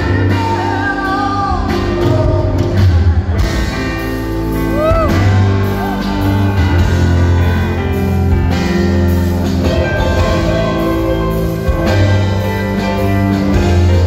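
Live rock band playing a slow song: a male voice singing over keyboard, bass guitar and drums.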